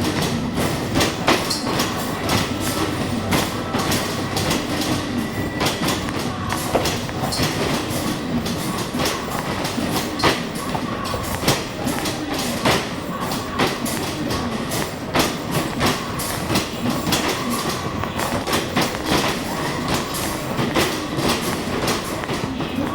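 Arcade basketball machine in play: basketballs striking the backboard and rim and rolling back down the return ramp in a continuous, irregular clatter of knocks, with the machine's electronic sound effects wavering faintly underneath.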